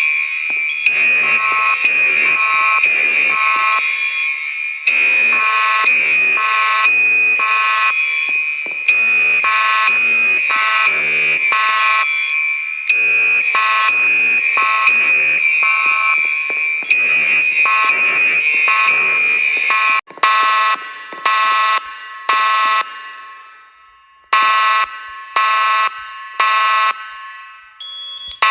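Fire alarm horns sounding the temporal-three evacuation pattern: three blasts and a pause, repeating about every four seconds, over a steady high tone. About twenty seconds in there is an abrupt change to a different alarm sounding the same three-blast pattern.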